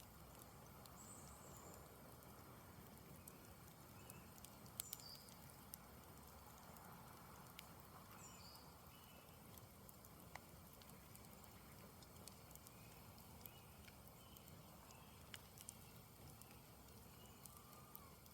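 Campfire burning quietly, with faint scattered crackles and pops from the wood, the sharpest about five seconds in. A few faint high bird chirps sound now and then.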